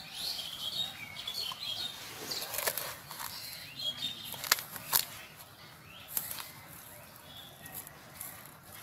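Birds chirping in the background, with a few sharp clicks of a cup knocking against a steel bowl as it scoops and pours granules, the loudest about halfway through.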